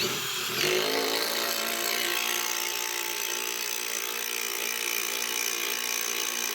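Cordless power drill starting up, its whine rising in pitch over the first second, then running steadily.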